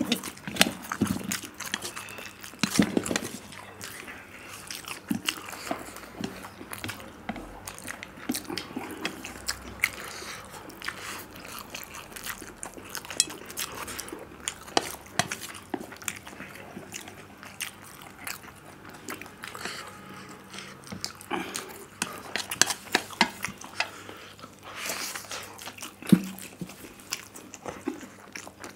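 Close-miked slurping and chewing of instant noodles by two people eating with chopsticks: a dense run of wet smacks and short sharp clicks.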